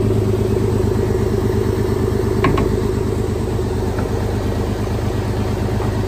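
Heavy diesel engine running steadily at a constant speed, with one brief sharp sound about two and a half seconds in.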